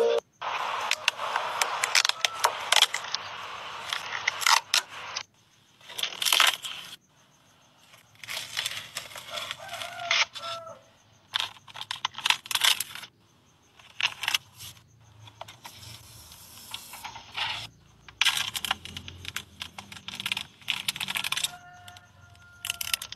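Protective plastic film being peeled and crinkled off a new car's interior trim and controls, in irregular bursts of tearing and rustling with short pauses between.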